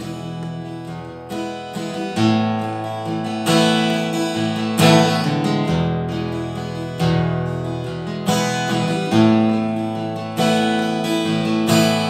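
Solo acoustic guitar strummed, each chord left ringing, with a fresh strum about every second and the chord changing every few seconds.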